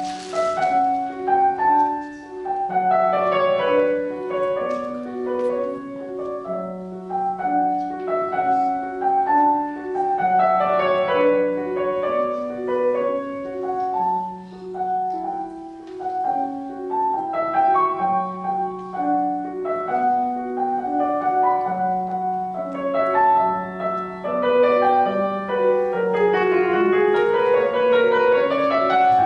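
Grand piano playing classical music: rippling runs sweep up and down over repeated held bass notes.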